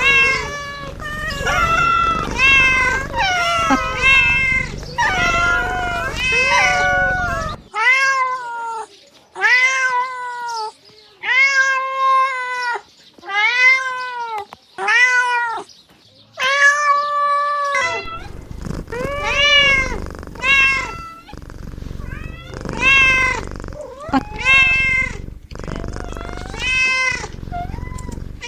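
Kittens meowing over and over, about one short call a second, each call rising then falling in pitch.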